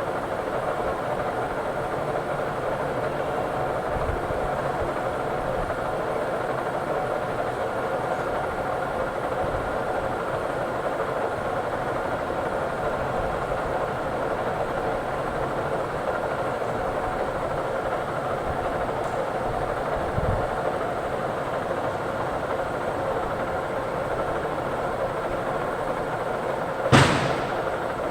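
Metal lathe running steadily with an even machine hum, with one sharp metallic knock near the end.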